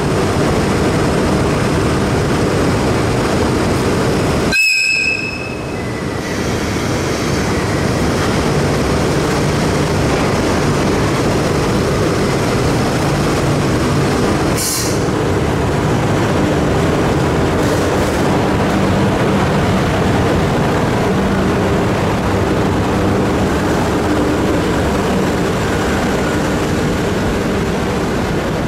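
ED75 AC electric locomotive standing at a covered station platform with a steady hum. A brief high tone comes about five seconds in and a short hiss of air about fifteen seconds in. Near the end its train of old-style passenger coaches is rolling past.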